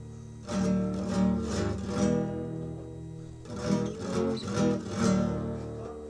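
Acoustic guitar strumming chords, a string of sharp strokes with the chords ringing on between them.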